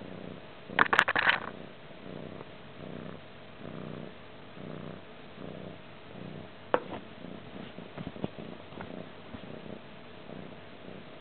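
Cat purring close to the microphone, a steady low purr that swells and fades in a regular rhythm about every two-thirds of a second. A loud scuffle about a second in and a few sharp taps later on.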